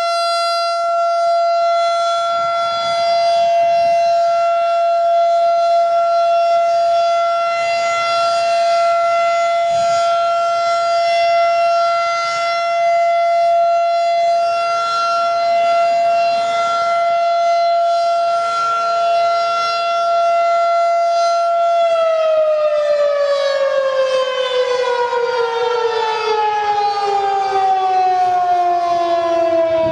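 Federal Signal 2001-DC outdoor warning siren sounding a steady single-tone alert signal during a monthly test. About three-quarters of the way through it begins to wind down, its pitch falling smoothly as the rotor slows.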